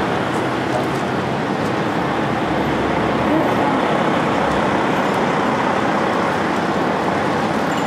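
Steady city street noise of road traffic going by, with a deeper rumble from a passing vehicle around the middle.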